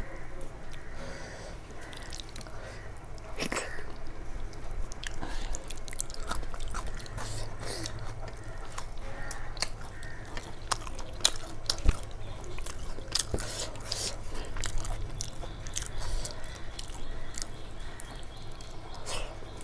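Close-miked chewing of a hand-eaten mouthful of khichdi, with frequent small mouth clicks and one sharper click near the middle.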